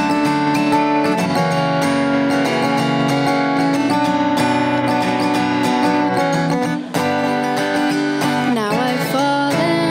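A woman singing a song to her own strummed acoustic guitar, live on stage. The music breaks off for a moment about seven seconds in.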